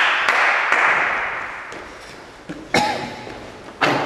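Scattered clapping from a few spectators fades out over the first two seconds. Then a few separate sharp knocks echo in the large gym hall.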